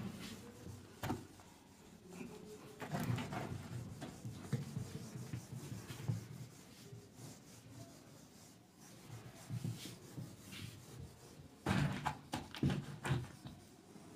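A duster wiping marker writing off a whiteboard in irregular rubbing strokes, with a run of louder strokes near the end.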